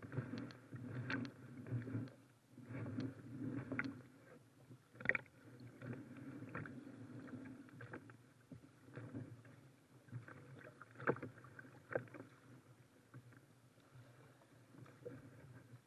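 Kayak paddle strokes: the double-bladed paddle dipping and pulling through choppy water, splashing with each stroke, with a few sharp knocks about five seconds in and again near eleven to twelve seconds.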